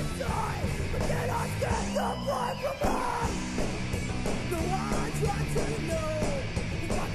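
Background rock music with shouted, yelled vocals over a driving beat and distorted guitars.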